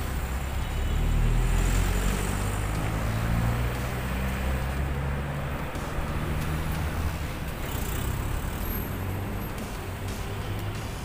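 Road traffic on a busy street, cars and vans passing with a steady low engine rumble that swells about a second in as a vehicle goes by.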